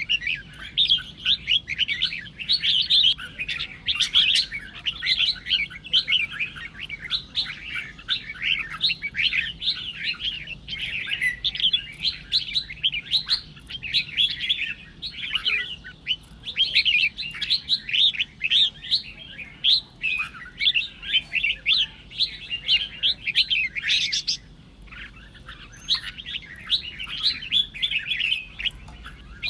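Red-whiskered bulbuls singing competitive, fighting song: a dense, unbroken stream of rapid chattering phrases, with a brief lull about twenty-four seconds in.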